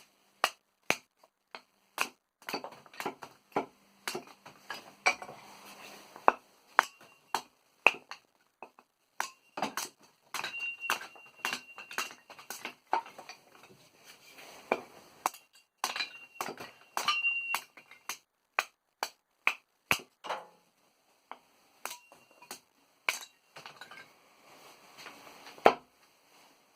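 A blade splitting kindling: a long run of sharp, irregular chopping strikes and wood cracking apart, with the steel blade ringing on a high tone after some of the blows.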